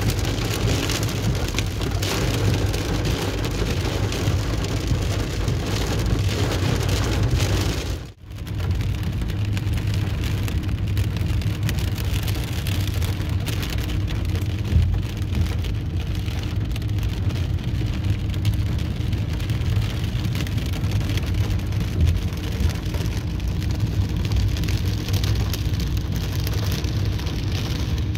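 Heavy rain drumming on a car's windshield and roof, heard from inside the moving car, with a low rumble of engine and road beneath. The sound breaks off briefly about eight seconds in and then carries on.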